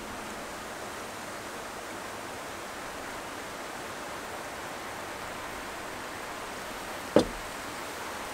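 Steady rushing of the river, an even noise throughout. About seven seconds in, a single sharp knock stands out as the loudest sound.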